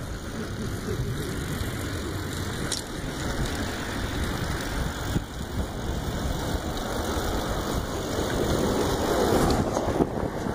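Wind buffeting the microphone and tyre rumble from a bicycle ridden along a pavement, with a couple of sharp clicks and knocks, growing louder near the end.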